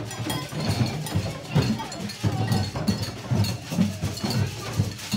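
Children's percussion group beating empty plastic water-cooler jugs and buckets with sticks: a repeating beat of low, hollow thumps, with metal cups struck alongside for a clinking ring.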